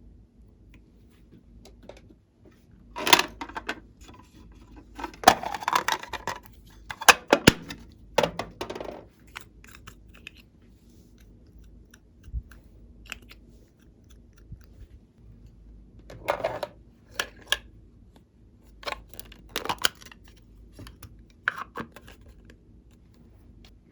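Glossy slime being handled and mixed with clay, giving irregular sticky crackles, clicks and pops in bursts of a second or so, with quieter gaps between.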